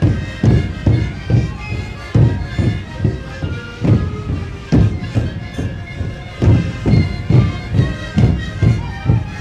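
Sikuri ensemble playing: many siku panpipes sounding a melody together over a steady beat of large bass drums.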